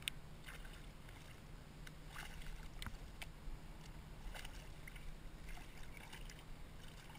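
Faint water splashing as a hooked fluke thrashes at the surface beside a kayak: scattered short splashes and clicks, the sharpest one right at the start.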